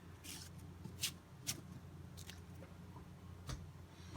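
Cardboard trading cards being handled and flipped through: a handful of faint, separate clicks and soft slides of card stock, over a low steady hum.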